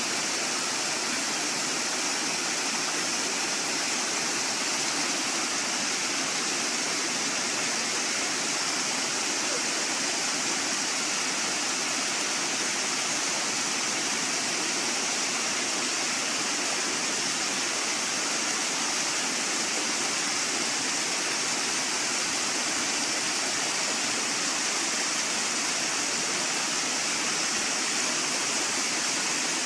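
Brook rushing over and between boulders: a steady, even hiss of flowing water, unbroken throughout.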